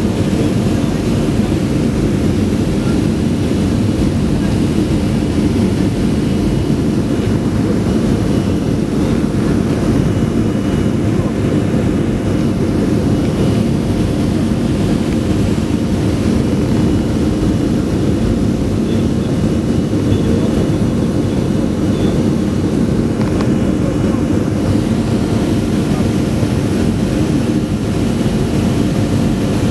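Cabin noise inside a Boeing 737-500 climbing after takeoff: the steady, deep sound of its CFM56-3 turbofan engines and the rushing air, with a few faint steady tones over it.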